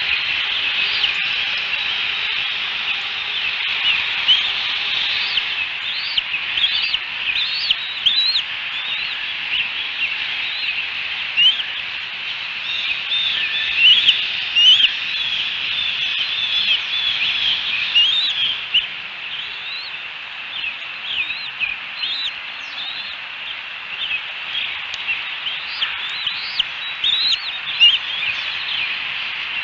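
Birds chirping: a run of short, high peeps over a steady high hiss, sparser for a few seconds past the middle.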